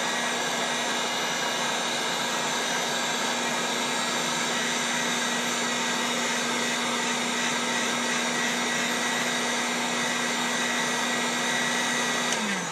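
Handheld electric heat gun blowing hot air onto a plastic fuel line to soften it, running steadily with a motor hum. It is switched off near the end, the hum sliding down as the motor winds down.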